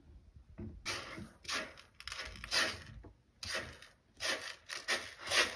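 A kitten scraping and digging in granular cat litter inside a plastic litter box: a run of about ten short, uneven rasping strokes, starting about a second in.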